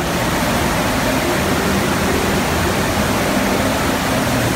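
Steady rush of water from an indoor surf-simulator wave machine, a thin sheet of water pumped at speed up a padded slope, spraying under a bodyboard.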